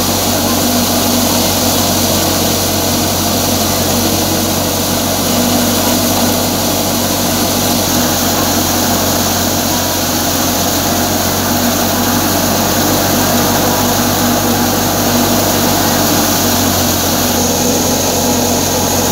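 Tractor-driven wheat thresher running steadily under load as bundles of wheat are fed into it: one continuous mechanical drone of the threshing drum and blower together with the tractor engine.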